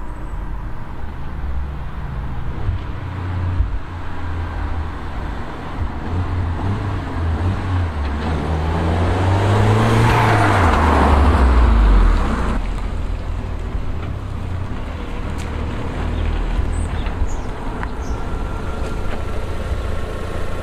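Audi TT 8N's 1.8-litre turbocharged four-cylinder engine running as the car drives along. About ten to twelve seconds in, its note rises and gets louder as the car comes past, then falls away.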